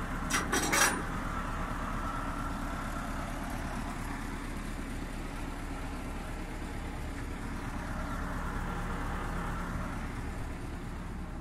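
A prime mover's diesel engine idling steadily. There are a few sharp metallic clicks in the first second.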